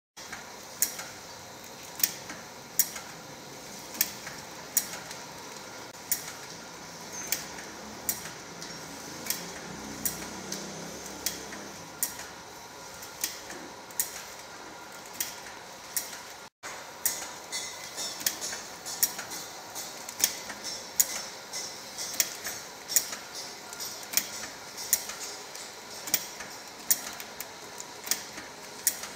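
Automatic drip coffee bag packing machine running: a steady mechanical hum with sharp, regular clicks from its repeating cycle, about one a second at first, then closer together and busier after a brief dropout about halfway.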